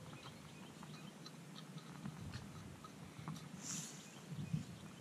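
Faint scattered crackles and ticks as a small fire catches in a stainless steel wood-burning camp stove, with a low wind rumble on the microphone and a brief soft hiss a little before the end.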